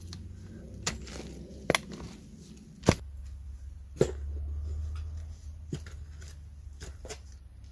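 Folding military shovel digging into soggy earth: a series of sharp scrapes and knocks as the blade cuts and strikes the soil, with a low rumble for a second or so in the middle.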